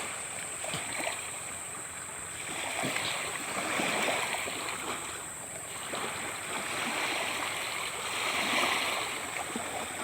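Running water, an even rushing that swells and eases every few seconds, with a steady high-pitched tone throughout.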